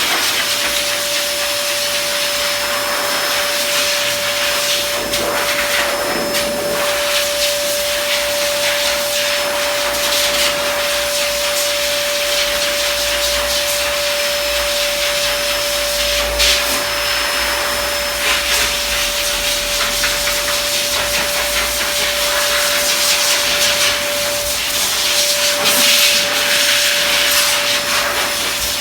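Pet dryer blowing air steadily: a continuous rushing hiss with a constant motor whine.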